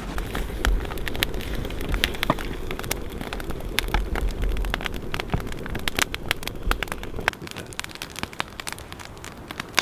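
Pieces of meat sizzling with maple syrup in a frying pan over an open wood fire: a steady hiss full of dense crackles and pops.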